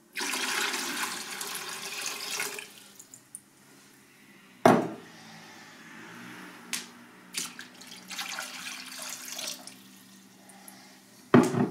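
Water rushing for about two and a half seconds, then a loud knock, a few light clicks, a second shorter rush, and another loud knock near the end.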